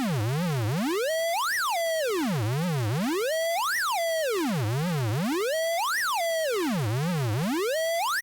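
Synthesized tone rich in overtones, generated from a mathematical shape. Its pitch sweeps up and down over and over in a zigzag, climbing sharply to a high peak about every two seconds and dropping low with a small wobble in between. It cuts off abruptly at the end.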